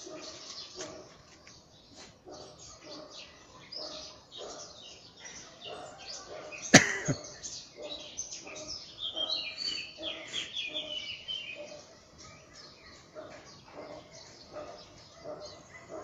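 Small songbirds chirping and twittering in a morning chorus, with one bird giving a rapid, falling trill from about nine seconds in. A single sharp click a little before seven seconds is the loudest sound.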